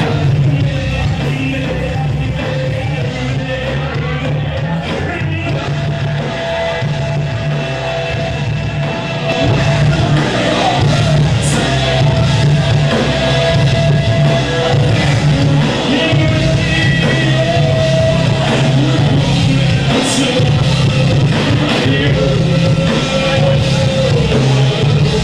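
Live rock band playing loud, with drums, electric guitars and vocals, in a crowd recording of poor quality. It gets louder about ten seconds in.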